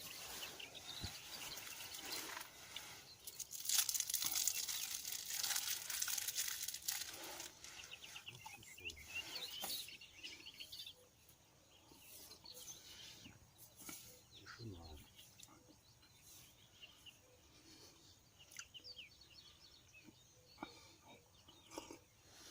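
Birds chirping faintly and intermittently. A stretch of rustling noise fills the first several seconds, loudest about four to seven seconds in.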